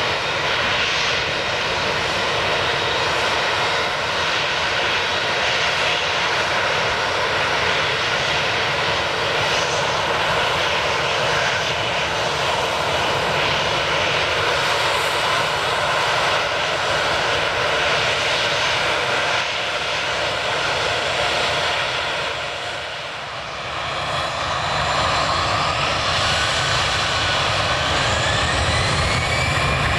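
Twin-engine jet airliner's engines running at high power close by, a loud steady noise across the whole range. It dips briefly a little past the middle, then comes back with a rising whine as engines spool up.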